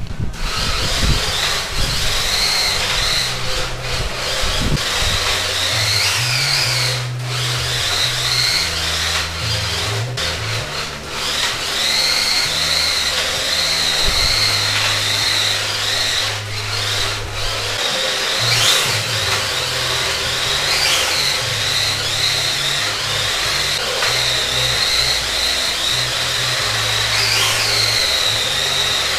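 Electric motor of a battery-powered 1/10-scale RC drift car whining, its pitch repeatedly dropping and rising again as the throttle is eased and opened, over a low uneven rumble.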